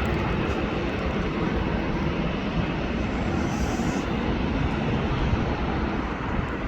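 Airliner engine noise: a steady, broad rush that eases slightly as the aircraft moves away.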